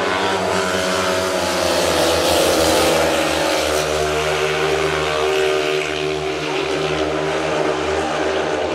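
Speedway motorcycle engines running hard in a race, a dense, steady engine note whose pitch drifts up and down as the machines go round the track.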